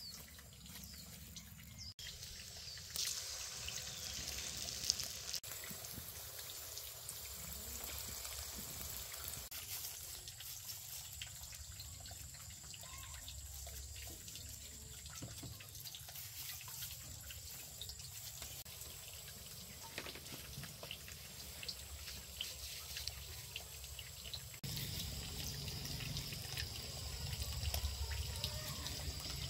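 Running water trickling and splashing, as from a tap, with small knocks now and then. The sound changes abruptly a few times.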